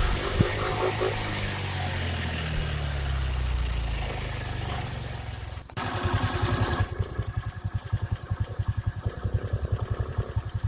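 Suzuki Access 125 scooter's single-cylinder 124 cc engine and exhaust, its revs falling away over a rushing noise. About six seconds in the sound changes abruptly to an even, rapid low putter at idle.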